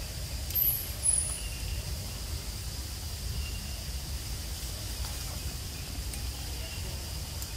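Forest ambience: a steady, high insect drone over a low rumble, with two short, very high chirps about half a second apart a second in.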